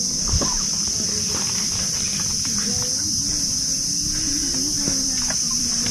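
Steady, high-pitched insect chorus droning without a break, over a low rumble.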